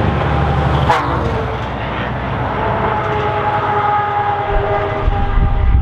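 Scania R500 V8 truck running on open exhaust pipes as it passes close by and pulls away: a deep, many-toned exhaust note that drops in pitch about a second in as the truck goes past, then climbs steadily as it accelerates away.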